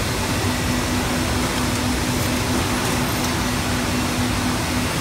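Muller Martini Corona C18 perfect-binding line and its delivery conveyors running: steady machine noise with a hum that pulses several times a second.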